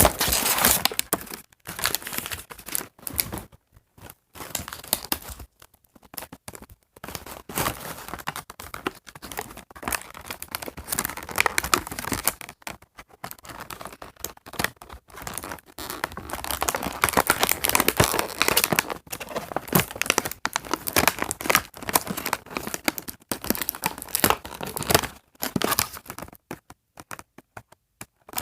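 Doll packaging being crinkled and torn open by hand: irregular bursts of rustling, crumpling and ripping with short pauses between them.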